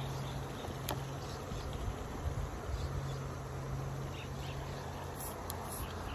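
A steady low buzzing hum that drops out briefly about two and a half seconds in, with faint high chirps and a single sharp click about a second in.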